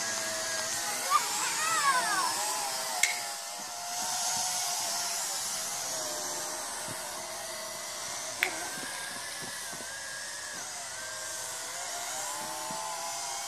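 Apex toy quadcopter's four small motors and propellers whining overhead, the pitch wavering up and down as it is flown. Three sharp clicks come about a second in, at three seconds and at eight and a half seconds.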